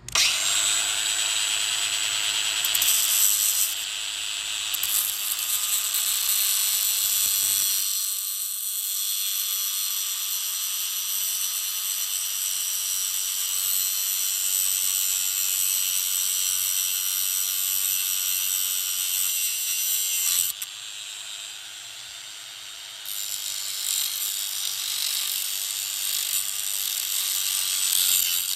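Bauer 20V cordless 4-1/2 in. angle grinder cutting through metal, a loud high grinding screech over the steady whine of the motor. It starts suddenly, eases off for a couple of seconds about twenty seconds in, then bites again.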